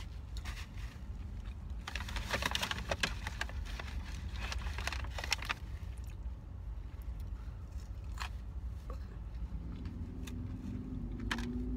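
Close-up crunching and chewing of a lettuce-wrapped burger with crisp iceberg lettuce, loudest in crackly bursts about two and five seconds in, then quieter chewing with a few clicks, over a steady low rumble.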